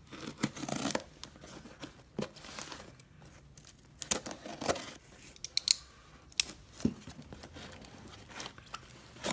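Utility knife blade slitting packing tape on a cardboard box, then the tape and cardboard being pulled and handled: a series of short, irregular scrapes and rips.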